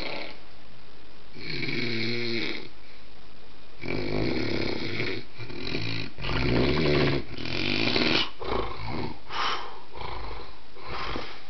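A dog snoring: a string of separate snores at uneven intervals, about one a second through the middle, with short pauses between them.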